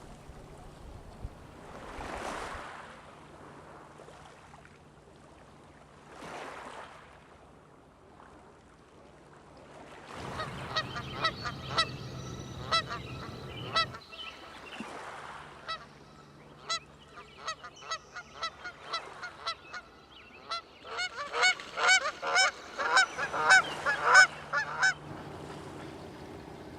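Birds calling in fast runs of short, repeated honking notes, starting about a third of the way in and loudest near the end, with waves washing on the shore before the calls begin.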